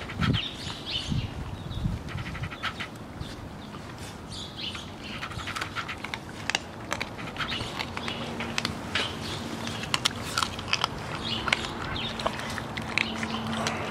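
Seven-week-old puppies chewing and crunching on a whole raw chicken, the bones cracking in many sharp clicks, with high-pitched chirps and squeaks throughout.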